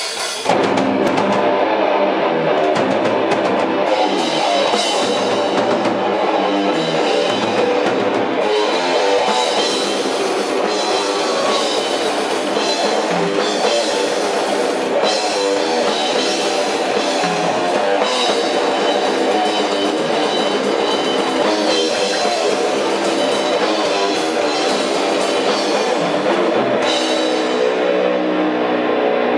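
Loud rock music with a drum kit and guitars, kicking in sharply about half a second in and running on steadily.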